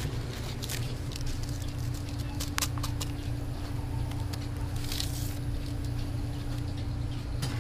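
Steady low hum with a constant tone from store machinery, with scattered clicks and rustles from a handheld phone and a short hiss about five seconds in.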